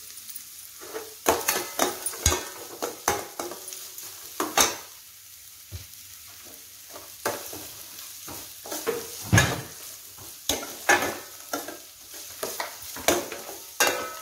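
A steel spoon scrapes and clinks irregularly against a stainless steel kadai while stirring sliced onions and dried red chillies frying in oil. A steady sizzle from the hot oil runs underneath.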